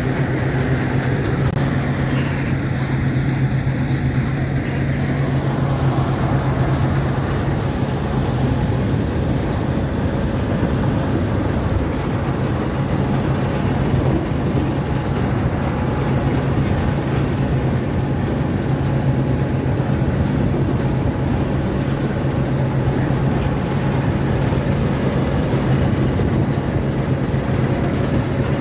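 Diesel engine of harvest machinery running steadily under constant load, a continuous low drone with machinery noise over it.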